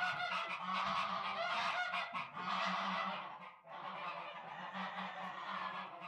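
Farm geese honking continuously and really loud, with a short lull about three and a half seconds in; the honking stops abruptly at the end.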